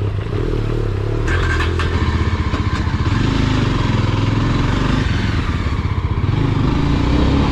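Motorcycle engine running steadily while under way, with a brief rattle of small clicks about a second or two in.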